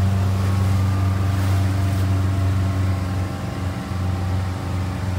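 Motorboat engine running steadily under way, a low even hum.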